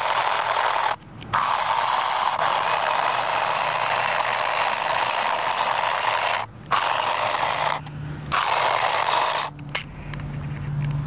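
Toy RC car's small electric motor and gearbox whirring hard under throttle, cutting out briefly about three times as the throttle is let off, then running lower and quieter near the end.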